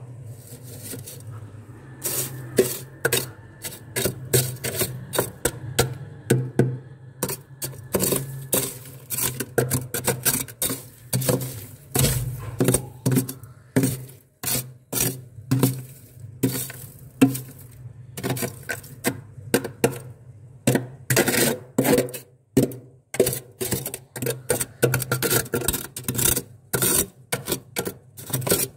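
Metal slotted spatula scraping and chopping through thick, crunchy freezer frost in quick repeated strokes, starting about two seconds in. A low steady hum runs underneath.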